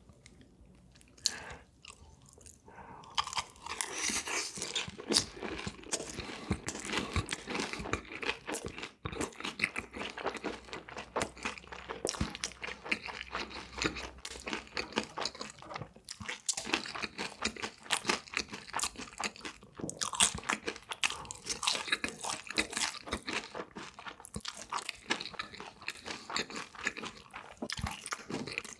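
Close-miked chewing of crunchy food: a person biting and munching with rapid, crisp crunches that start about three seconds in and keep going.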